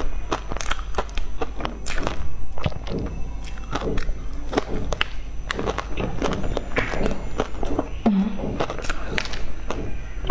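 Close-miked chewing of a soft cake coated in pork floss and seaweed: many quick wet mouth clicks and lip smacks, with a brief hum from the eater about eight seconds in.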